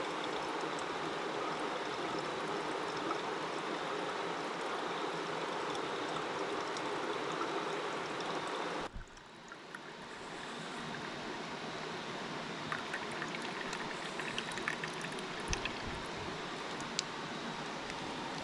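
Steady rushing of a mountain creek. About nine seconds in, the sound cuts off sharply to a quieter background that slowly swells, with scattered light clicks.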